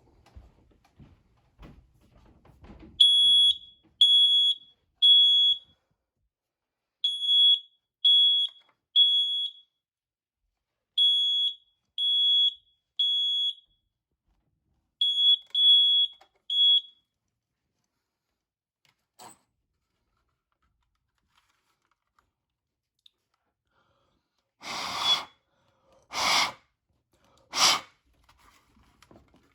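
First Alert i9010 ionization smoke alarm sounding under test. It gives loud, high-pitched beeps in groups of three with a pause between, the temporal-three evacuation pattern, for four rounds and then stops. Three short loud noises follow near the end.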